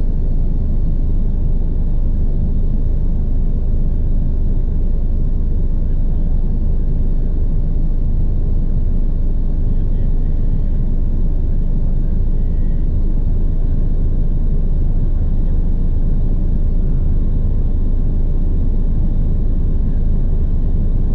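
Bell 429 helicopter's twin turboshaft engines and rotor running: a loud, steady low rumble with a faint steady whine above it.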